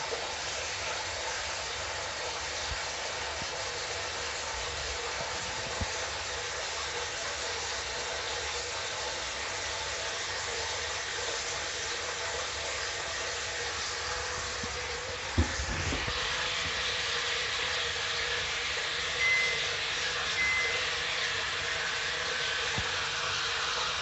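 Hot water from a Noritz gas water heater rushing into a bathtub through the tub's filling port as a steady hiss. About 15 seconds in there is a knock and the flow grows louder, and two short high beeps follow a few seconds later.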